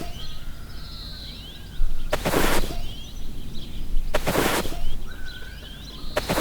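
Small birds chirping and twittering, with a loud rushing burst about every two seconds, three times.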